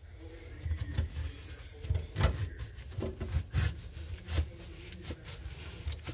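Old foam engine-bay seal on a VW T2 bus being pulled and torn away from the steel body by hand: irregular rubbing and scraping with several short sharp knocks.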